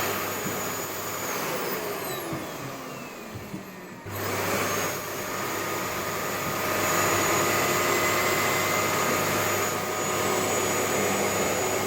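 Vacuum cleaner motor running with a steady whine. Its pitch slides down and it quietens, then about four seconds in it jumps back to full power and runs steadily again.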